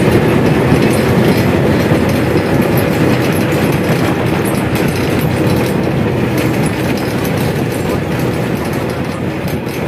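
Local passenger bus driving at speed: its engine runs steadily under loud road noise and body rattle, heard from inside the bus.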